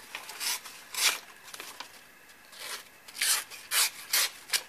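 Knife blade, a Scrapyard Scrapivore with a thick edge, slicing through a hand-held sheet of paper in short rasping strokes. There are about seven strokes, two in the first second and a quicker run of four near the end.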